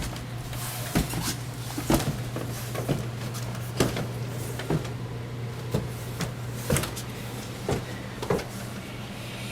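Footsteps and light knocks of handling, irregular and roughly once a second, over a steady low hum.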